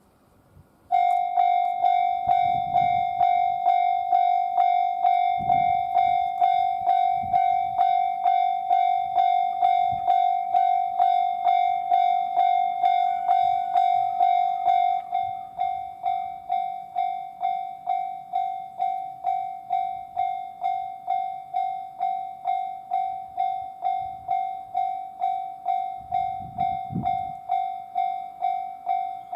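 Japanese railway level-crossing alarm starting up about a second in, an electronic bell dinging at a steady rate of about two strikes a second, the sign that a train is approaching. About halfway through it drops to a lower volume and keeps ringing.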